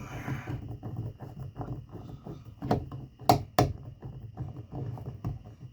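Small clicks and taps of a screwdriver working a wire terminal screw on a plastic thermostat, with three sharper clicks a little past the middle.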